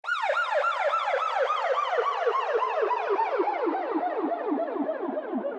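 Police siren in a fast yelp, about four quick rising-and-falling sweeps a second, starting abruptly out of silence. The whole siren slowly sinks in pitch as it goes.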